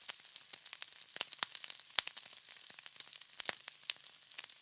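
Bacon sizzling on a flat-top griddle: a steady frying hiss with frequent sharp crackles and pops.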